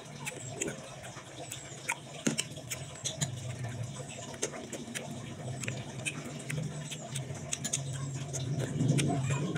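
Close-miked mouth sounds of eating santol fruit: wet chewing, lip smacks and sucking clicks, growing louder near the end as another piece goes into the mouth.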